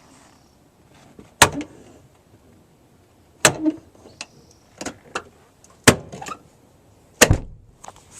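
Toyota Sienna minivan front door making sharp pops as it is worked: four loud knocks about two seconds apart, with a couple of lighter ones between. This is the popping noise of a fractured door check pocket, whose welds have failed.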